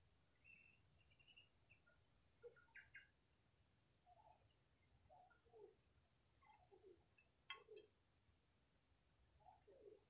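Faint, steady high-pitched insect trilling that pulses roughly once a second, with scattered faint low calls underneath from about four seconds in.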